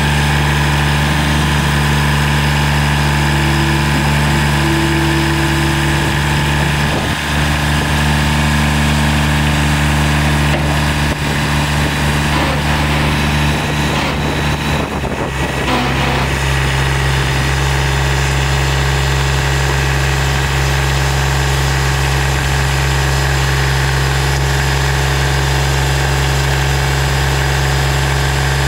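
Kubota BX2200 compact tractor's three-cylinder diesel engine running steadily at idle, its note shifting briefly about halfway through.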